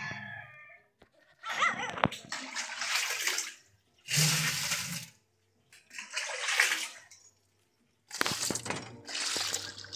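Water from a hose splashing onto a heap of nixtamal (lime-cooked corn) on a wire-mesh washing screen, rinsing off the lime. It comes in four stretches that start and stop abruptly, with short silences between.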